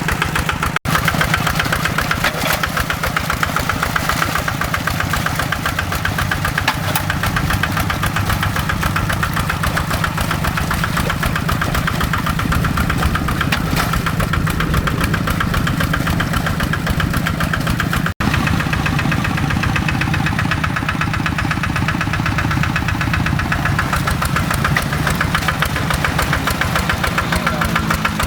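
Kubota RD85 single-cylinder diesel engine on a hand tractor running steadily with its fast, knocking firing beat, its pitch shifting slightly near the end.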